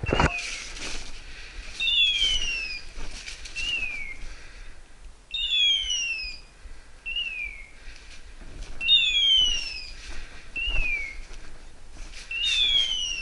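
Electronic hawk-scream from a hunting dog's beeper collar: a falling whistle followed by a short chirp, repeated in the same shape every one to three seconds. This is the mode a beeper sounds when the setter stops moving, as on point. A short knock comes just after the start.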